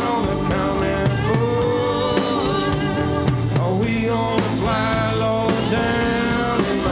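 A live band playing an instrumental passage of a roots-rock song: organ to the fore over archtop guitar and drums, with a steady beat.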